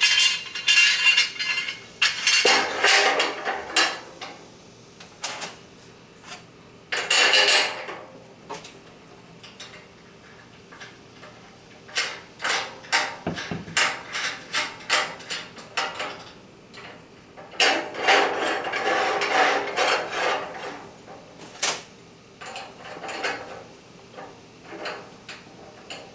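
Galvanized steel beam clamp pieces clinking and rattling against each other and the steel beam as they are hooked on and fitted by hand. The clatter comes in several short bursts with quiet pauses between.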